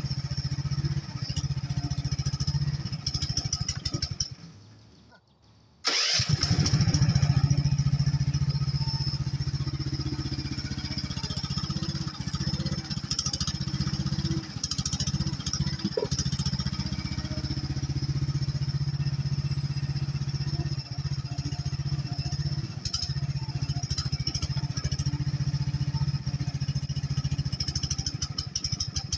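HT10 mini excavator's engine running steadily under load while its hydraulic boom and bucket dig dirt. About four and a half seconds in the sound drops away almost to nothing, then comes back suddenly at full level a second and a half later.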